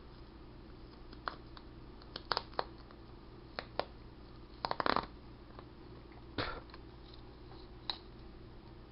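Small paper prize packet being handled and torn open: scattered crinkles and rips, the loudest cluster about five seconds in and another short tear a second and a half later.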